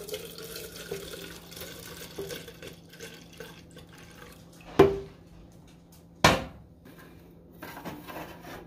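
Hot bacon grease trickling from a skillet into an empty metal cookie tin, followed by two sharp metal clinks about a second and a half apart.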